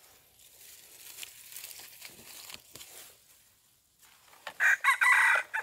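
Rooster crowing once, loud, about a second long, near the end, after a few seconds of soft rustling and crackling in dry leaf litter.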